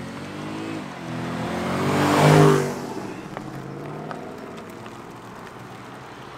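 Ferrari SF90 Stradale's twin-turbo V8 accelerating past. The engine note climbs in pitch, drops once about a second in, and climbs again to its loudest at about two and a half seconds, then fades as the car drives away.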